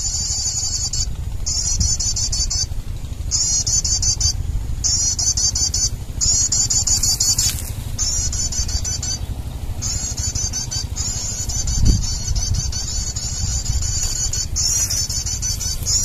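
Bird-trapping lure call played from an MP3 speaker: rapid, high-pitched chirping in bursts of one to two seconds with short breaks between. A steady low rumble runs beneath it.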